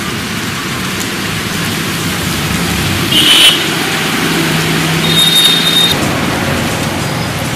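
Traffic on a rain-wet street in steady rain: a constant wash of rain and tyre hiss with a vehicle engine passing. Two brief high-pitched sounds come about three and five seconds in.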